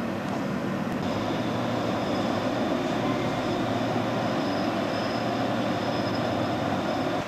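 Steady low drone of ship engines with a rushing noise. The sound shifts slightly about a second in, where a faint high whine joins it.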